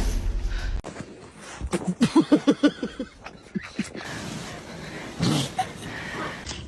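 A dog giving a quick run of short, pitched barks about two seconds in, after a low rumble cuts off near the start.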